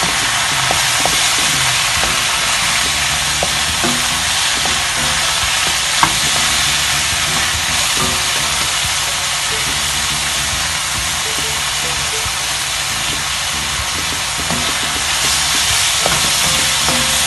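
Sliced mushrooms and broccoli sizzling steadily in hot oil in a wok, stirred and scraped with a wooden spatula. There is one sharp click about six seconds in.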